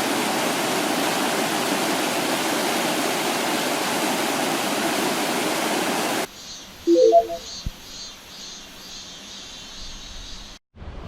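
Mountain stream water rushing over rocks at a cascade, a loud steady hiss of water that cuts off abruptly about six seconds in. A much quieter outdoor background follows, with a few short pitched notes about a second after the cut.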